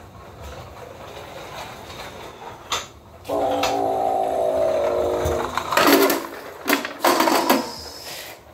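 A train horn blows one steady chord for about two seconds, then a clattering crash with several sharp knocks as the toy tow truck is hit and knocked over.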